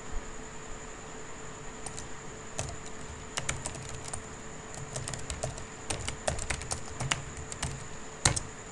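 Typing on a computer keyboard: irregular runs of key clicks, sparse at first and then in quick clusters, with one louder keystroke near the end.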